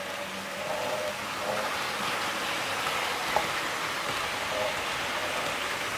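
HO scale model train running past on the track, with a steady rolling hiss of wheels on rails that builds over the first second or two, and a single sharp click about three and a half seconds in.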